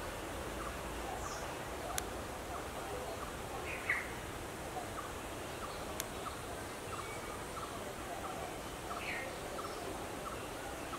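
Outdoor bird ambience over a steady background hiss: a few short chirps and a faint, regular ticking call repeating about twice a second, with two sharp clicks, one about 2 seconds in and another about 6 seconds in.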